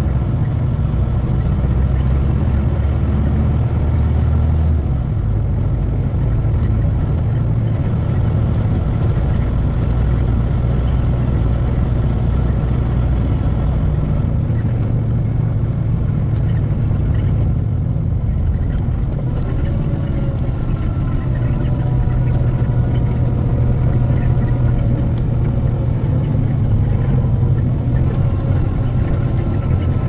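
Steady engine drone and road noise heard inside a truck cab while driving, the engine's low pitch shifting about five seconds in.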